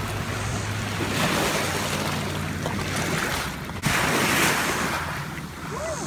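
Small lake waves splashing against rocks and a gravel shore, with a low rumble underneath; the sound shifts abruptly about four seconds in.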